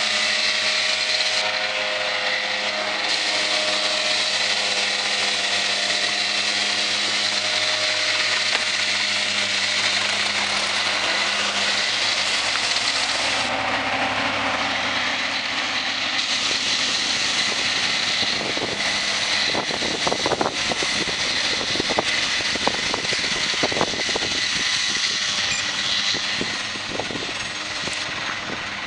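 Tractor diesel engines running close by. A Deutz-Fahr drives past first, then a Zetor tractor carrying a Pöttinger disc mower is heard. Over the second half, irregular knocking and clattering rises over the steady engine sound.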